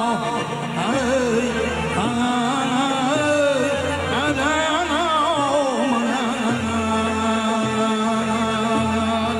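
Live Khorezm Uzbek folk music from a singer and band: a steady held drone under an ornamented, wavering melody line.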